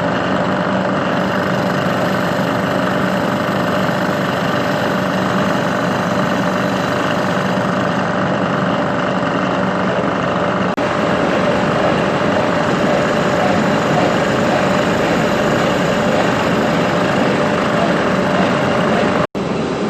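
Machine tool running steadily while milling small cuts off an edge, its motor and spindle making a continuous hum. The sound drops out briefly near the end.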